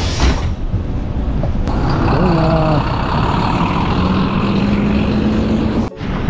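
City bus engine pulling the bus along, heard from inside, a heavy rumble with a steady engine note that climbs slightly in pitch as it accelerates. A hiss dies away just after the start, and the sound cuts off abruptly near the end.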